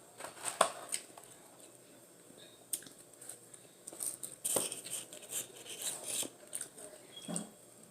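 Eating close to the microphone: scattered crunches and crinkling clicks, busier from about halfway in.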